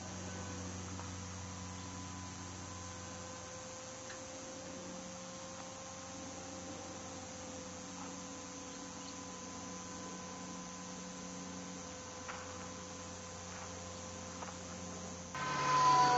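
Steady electrical hum with a few faint steady tones. Near the end, a sudden, louder rush of noise cuts in, with a falling whine.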